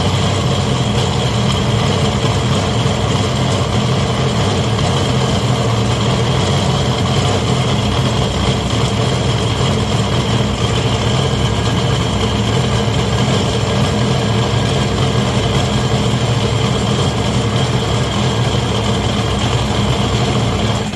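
Kawasaki Mach H1B 500 cc two-stroke triple idling steadily. The owner hears abnormal noise in it from both the bottom end and the cylinders, though the engine is said to have been overhauled.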